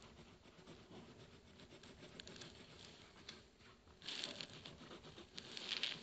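Faint scratching and dabbing of a paintbrush on sketchbook paper, with two louder spells of brushing about four seconds in and near the end.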